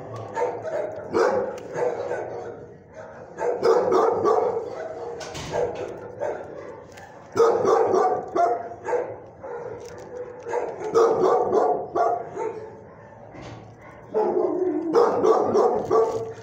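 Dogs barking in a shelter kennel, in bouts every few seconds with quieter gaps between.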